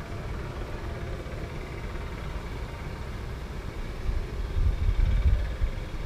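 Honeybees buzzing steadily around an open hive as a frame of bees is lifted out, over a low rumble that swells about four seconds in.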